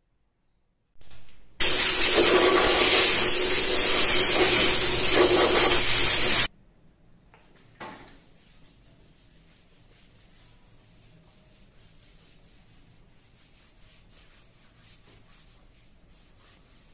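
A loud, steady rushing hiss for about five seconds that cuts off abruptly, followed by faint rubbing as a cloth wet with denatured alcohol is wiped over a segmented wooden bowl on the lathe.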